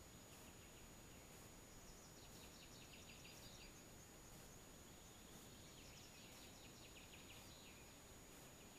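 Faint songbird song over near-silent background hiss: a rapid trill of short high notes about two seconds in, and another about six seconds in, each lasting a second or two.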